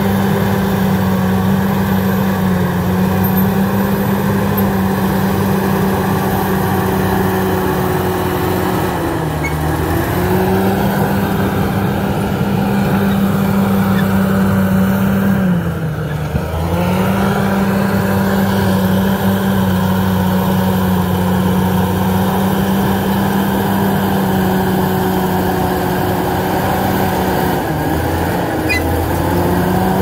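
Crawler bulldozer's diesel engine running steadily at high revs while the dozer pushes earth. The engine pitch dips briefly and recovers three times, about ten, sixteen and twenty-eight seconds in.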